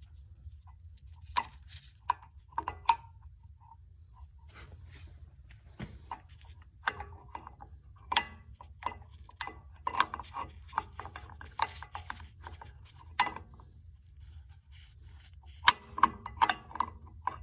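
Metal hand tools clicking and clinking against a car's disc brake caliper as the piston is pushed back with a tool or bolt: irregular light metallic clicks and knocks, busier and louder in the second half, over a faint steady low hum.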